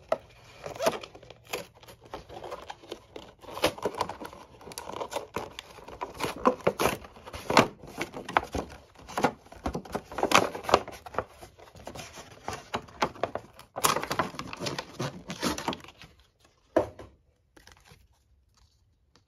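Doll packaging of cardboard and clear plastic being handled and worked open, with irregular crinkling, crackling and tearing. It stops about three seconds before the end, after one last snap.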